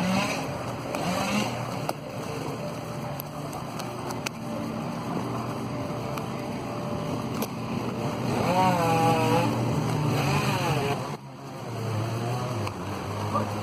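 Engines running at a work site with a truck-mounted boom crane: a steady low drone, joined about eight seconds in by a louder whine that rises and falls in pitch several times.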